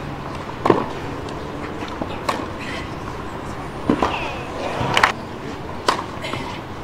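Tennis ball struck back and forth in a rally: a string of sharp racket hits, roughly one a second, over a steady background of crowd noise.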